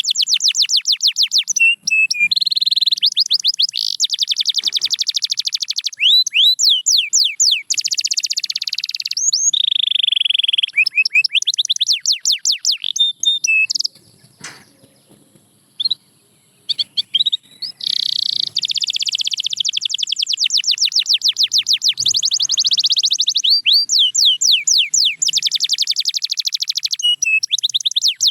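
Domestic canary singing: fast trilled runs of rapidly repeated high notes, broken by brief pauses, with a short silence about halfway through.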